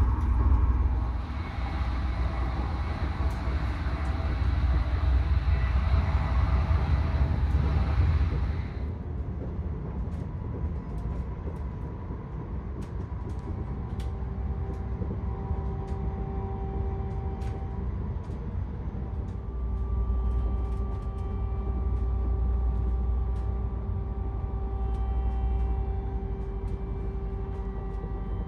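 Inside an ED250 Pendolino train running at speed: a steady low rumble from the running gear on the track. For the first nine seconds it is louder, with more hiss; after that it is quieter, with a faint steady hum and small scattered clicks.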